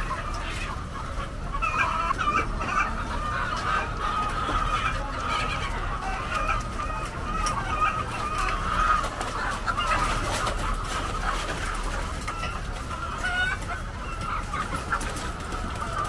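A large flock of caged laying hens clucking together, a steady din of many overlapping calls.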